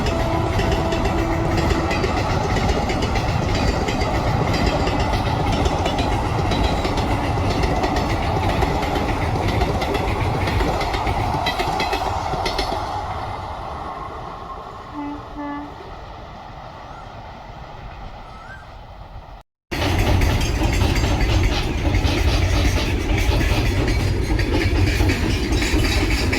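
Indian Railways electric-locomotive-hauled trains passing at speed. The horn sounds at the start and cuts off about two seconds in, then the rumble and clatter of the wheels over the rails fade as the train moves away. After an abrupt cut, a second train passes just as loudly.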